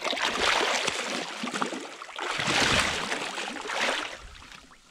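Water splashing and sloshing at the boat's side as a large wels catfish is gripped by the jaw and hand-landed, in two long bouts that fade near the end.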